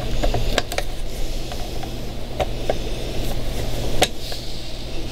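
A few light clicks and taps of metal and plastic as a control cable end is worked into a Yamaha 704 binnacle control box, over a steady low hum.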